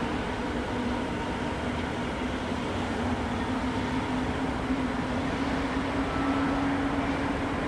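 Rail track-maintenance work train running, a steady engine hum over rumbling noise, its pitch creeping up slightly past the middle.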